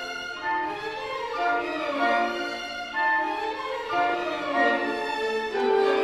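Classical orchestral music led by violins, playing held, sustained notes that move from chord to chord.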